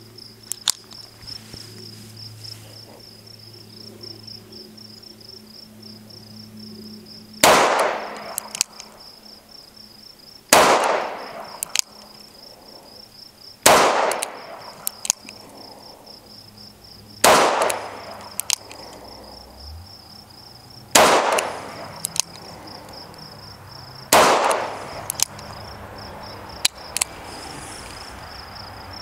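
Six shots from a Taurus 856 snub-nose revolver in .38 Special, fired single action about every three to four seconds, each a sharp crack with a short echo, with light clicks between shots as the hammer is cocked. A steady insect trill runs behind.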